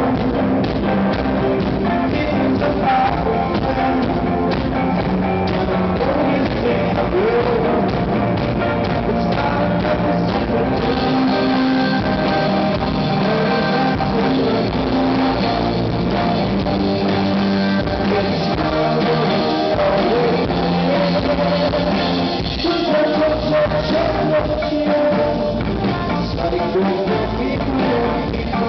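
Rock band playing live, with drums, guitar and a singer, at a steady full level.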